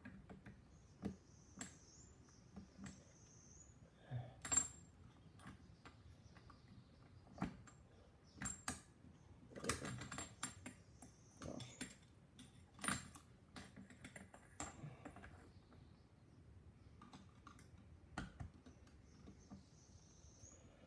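Irregular light metallic clicks and clinks of hand tools and shock absorber parts being handled during a strip-down, a few of them ringing briefly, with a faint high hiss now and then.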